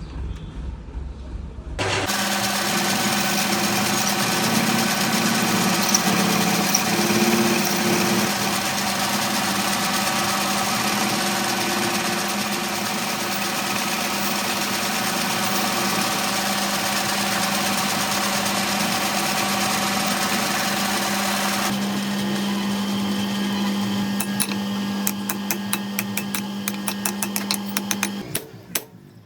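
A machine tool running steadily with a constant hum. It starts about two seconds in and its tone shifts a little later on. Near the end there is a quick run of sharp ticks, and then it winds down.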